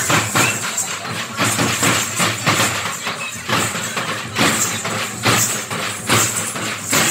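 Loud percussion with a driving rhythm of strong strokes about twice a second, over a steady high jangling hiss.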